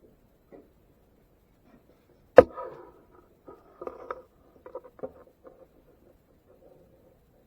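One sharp knock about two and a half seconds in, then a run of smaller clicks and taps: tools and connector parts being handled and set down on a workbench while soldering a battery connector.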